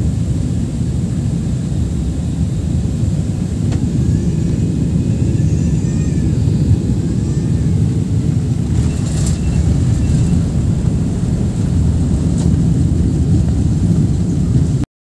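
Airliner cabin noise during landing: a steady, loud low rumble of jet engines and rushing air heard from a window seat as the jet comes down onto the runway and rolls along it.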